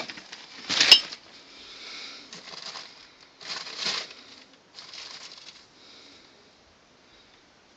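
Shiny plastic bag crinkling and rustling in several bursts as a ferret pushes and burrows against it, the loudest burst about a second in with a sharp click; it dies away after about six seconds.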